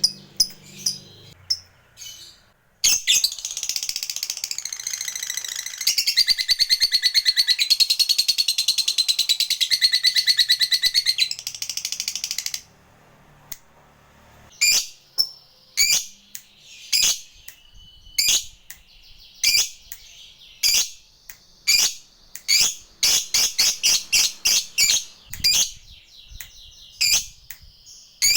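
Lovebird chattering in a long, rapid trill (the "ngekek" that hobbyists prize) that lasts about ten seconds and steps up and down in pitch. After a short pause come sharp single chirps about one a second, bunching closer together near the end.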